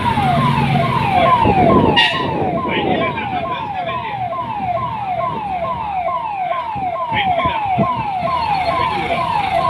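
An electronic siren sounding a fast repeating falling tone, about three downward sweeps a second, with a sharp knock about two seconds in.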